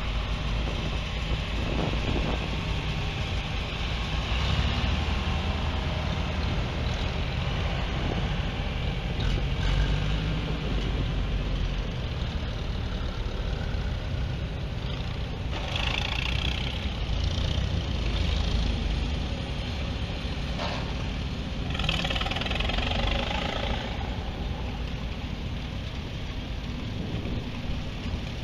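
Engines of a line of vintage John Deere and Farmall tractors running at low speed as they drive past one after another, a steady low engine sound throughout.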